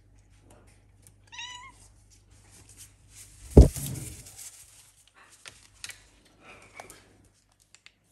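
A kitten gives one short, high meow about a second and a half in. Around the middle there is a single loud thump, followed by faint scuffing and clicks.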